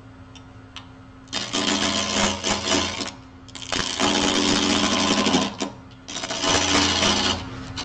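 Wood lathe motor humming steadily while a hand-held turning tool cuts the spinning natural-edge bowl blank in three passes. Each cut is a loud, rough hiss of the tool shaving wood, lasting about one to two seconds, with the lathe hum alone in the short gaps between.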